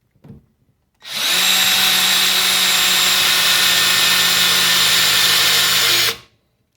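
Metabo SB 18 LTX Quick cordless hammer drill with a four-pole brushed motor, starting about a second in and running at a steady full speed for about five seconds, then stopping.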